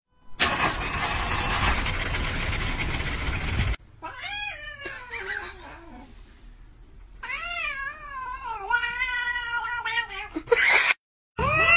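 A domestic cat yowling in two long, drawn-out meows with wavering pitch, after about three and a half seconds of loud rough noise. A steady siren-like tone starts right at the end.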